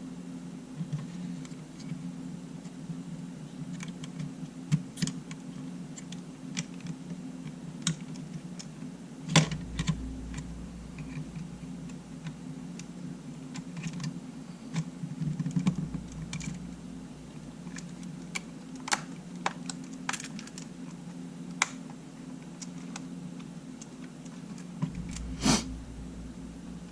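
Scattered light clicks and taps of small tools and parts being handled while a Sony A7 camera is taken apart, a few louder knocks among them, over a steady low hum.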